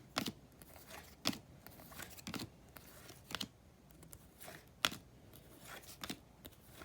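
Trading cards being handled and flipped through one by one, each card giving a sharp click or snap about once a second.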